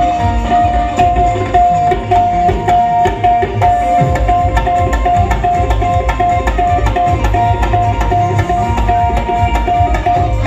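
Live qawwali ensemble playing an instrumental passage: tabla-style hand drumming under a single high melody note repeated about twice a second.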